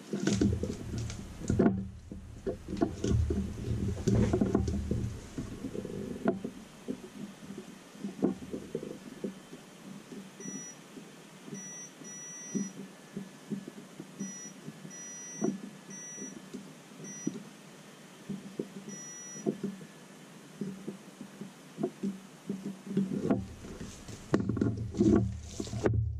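Rustling and knocking from handling a power-supply circuit board and test leads on bubble wrap, loudest in the first few seconds and again near the end. In between come about nine short beeps at uneven intervals, some brief and some a little longer, from a multimeter's continuity beeper as the probes touch points on the board.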